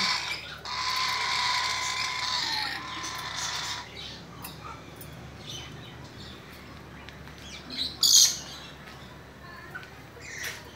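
Young parrot squawking: one long harsh squawk starting about a second in and lasting about three seconds, then a short, sharp squawk near the end.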